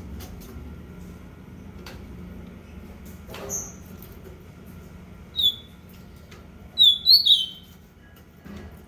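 Short, sharp bird calls from a pet bird: a faint one about three and a half seconds in, a loud falling call about two seconds later, then a quick burst of three near the end, over a low steady hum.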